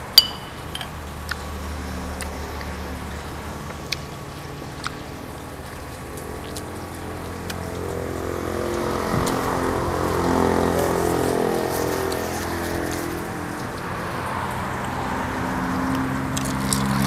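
Tableware at a hot-pot meal: one sharp clack right at the start and a few lighter clicks over a steady low hum. Indistinct background sound grows louder in the second half.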